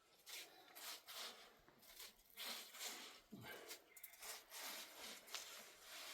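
Faint, repeated scraping strokes, several in quick succession.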